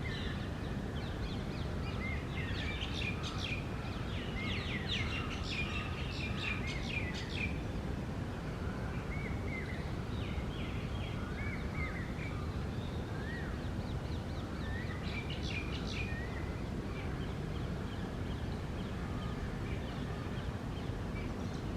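Rose-ringed parakeets giving rapid series of shrill, harsh calls, once a few seconds in and again about two-thirds of the way through. Softer short whistled calls from other birds come in between, over steady outdoor background noise.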